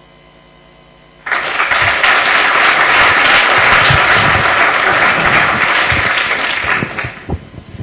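Audience applauding: dense clapping breaks out about a second in and tails off near the end.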